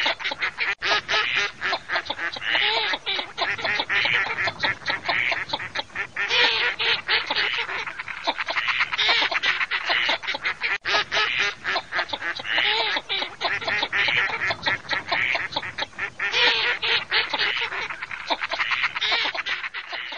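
A flock of ducks, mallards among them, quacking in fast, overlapping calls that rise and fall in loudness every few seconds.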